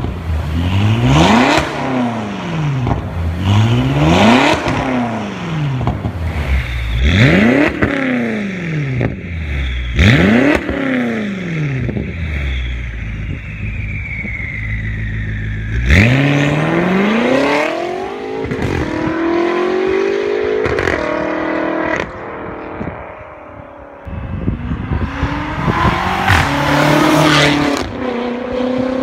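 BMW X6 M (F86) 4.4-litre twin-turbo V8 through a catless Fi Exhaust valved system. It starts with a string of sharp free revs, each climbing and falling back in about a second and a half. Then come hard full-throttle accelerations, the pitch climbing and breaking at each gear change.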